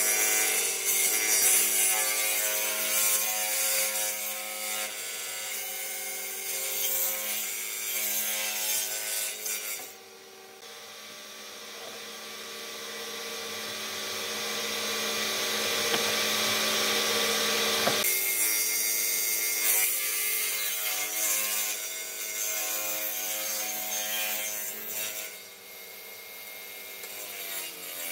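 An electric woodworking power tool running steadily and working wood, its motor sound changing abruptly about ten and eighteen seconds in.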